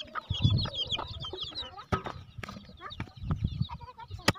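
Free-range chickens clucking, with many short high chirps over the first couple of seconds and a few sharp knocks, the loudest about four seconds in.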